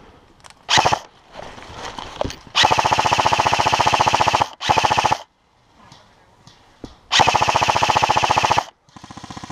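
Airsoft rifle firing full-auto bursts of rapid, even shots: a short burst about a second in, then a long one of about two seconds, a brief one, another of about a second and a half, and a fainter burst at the end.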